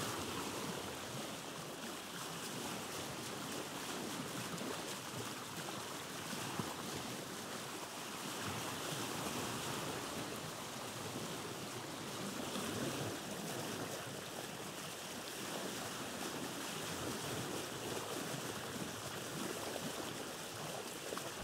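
Steady rushing outdoor noise, even throughout, with no distinct events or tones.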